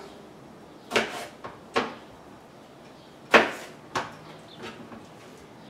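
Kitchen handling noises: about five separate sharp knocks and bumps, the loudest a little past halfway through.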